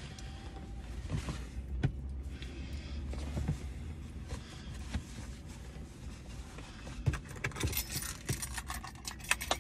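A bunch of keys being handled: scattered clicks and knocks, then busy jangling and clinking for the last two seconds or so.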